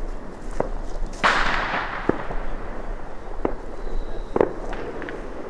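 Firecrackers going off: scattered sharp bangs, about one a second. The loudest comes about a second in and trails off in a hiss over most of a second.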